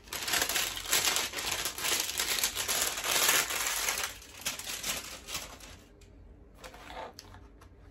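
Clear plastic wrapping being crumpled in the hands, a dense crackling for about four seconds that then thins to a few scattered crinkles.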